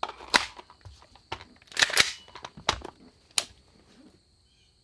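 Sharp metallic clicks and clacks of a SIG MCX Virtus rifle being loaded: a magazine holding one 5.56 round goes in and the action is worked. The clicks are spread out, with the loudest pair about two seconds in.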